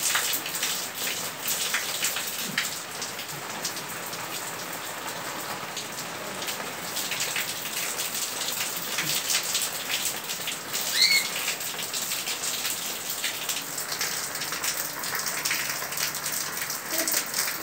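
Steady rain, with water streaming and dripping off a roof edge in many small splashes. A single short, high, rising chirp comes about eleven seconds in.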